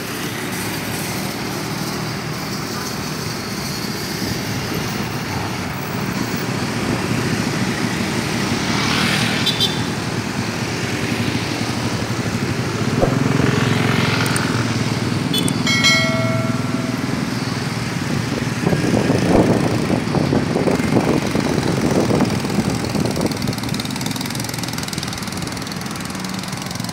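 Road traffic: motorcycles and cars passing, their engines swelling as they go by. A brief pitched beep sounds about two-thirds of the way through.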